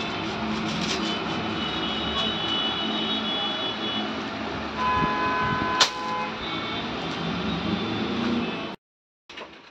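Steady background traffic noise, with a few brief held high tones and one sharp click about six seconds in; the sound cuts out briefly near the end.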